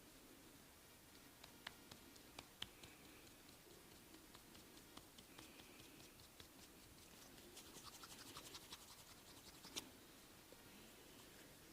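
Faint scratching of hands rubbing skin and hair in a massage, with scattered soft clicks, a quick run of crackles about eight seconds in and a sharper click near the end.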